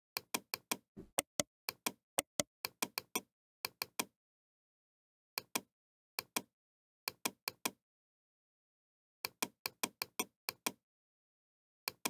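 Computer mouse clicking: an irregular series of short, sharp clicks, some in quick pairs or little clusters, with gaps of silence between them.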